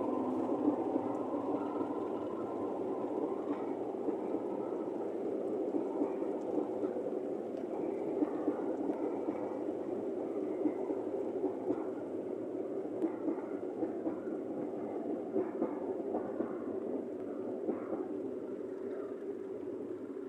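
A diesel train running through the station with a steady rumble, with a faint engine tone in the first couple of seconds and scattered small clicks throughout. It eases off slightly near the end.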